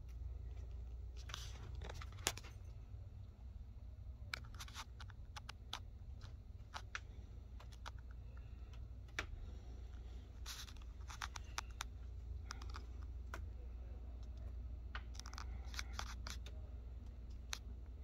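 Light, irregular clicks and ticks in small clusters over a steady low hum.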